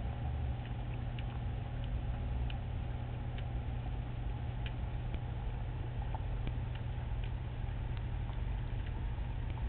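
Underwater sound: a steady low rumble with faint, irregular ticks and clicks scattered through it, a few every second.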